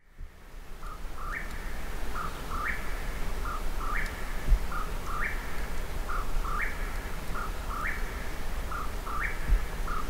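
A songbird singing the same short phrase over and over, about once every second and a half: two or three lower notes followed by one higher note. A steady low rumble runs underneath.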